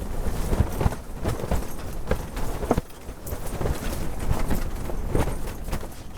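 Strong wind buffeting the microphone in a low, gusting rumble, with irregular short knocks through it.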